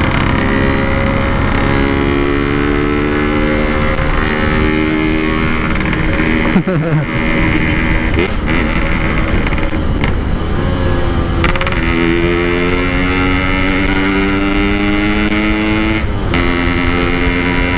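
Yamaha RX-King's two-stroke single-cylinder engine pulling at steady throttle under way through its side-mounted aftermarket exhaust, with a brief throttle lift and pick-up about seven seconds in.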